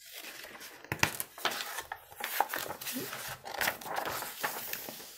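Paper pages of a picture book being handled and turned: a run of rustling and crinkling with several sharp crackles.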